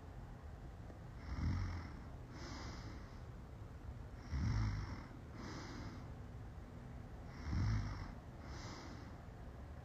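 A woman passed out drunk, snoring heavily. Three snores about three seconds apart, each a loud low snore followed about a second later by a softer breathy puff of air.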